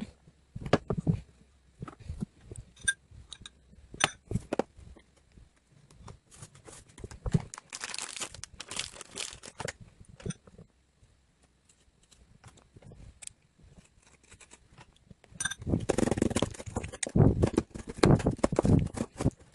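Close-up crinkling, crunching and clicking handling sounds: scattered sharp clicks, a burst of crackling about eight seconds in, and a longer, louder stretch of crackling near the end.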